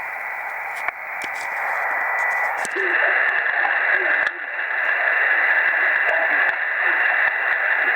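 Pocket SDR shortwave receiver's speaker hissing with static, narrow-band like a radio channel, with scattered clicks and a steady whistle-like tone. A weak voice station is buried under the noise and practically inaudible. The hiss gets louder about three seconds in.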